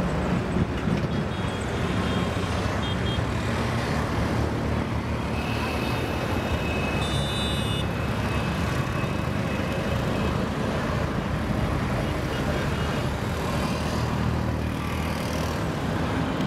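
Steady low engine rumble, unchanging in level, with a few faint high tones near the middle.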